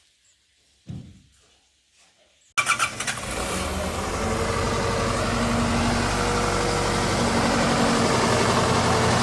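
Mortar truck's engine starting up about two and a half seconds in, then running steadily to drive the mortar pump for the floor screed pour.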